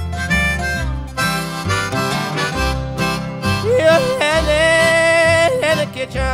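Blues music with harmonica over guitar; about four seconds in, the harmonica holds one long, wavering note for nearly two seconds.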